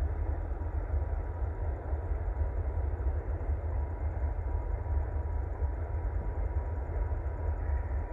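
Distant rail-yard ambience: a steady low rumble of diesel locomotive engines working the yard, with a faint steady tone running through it.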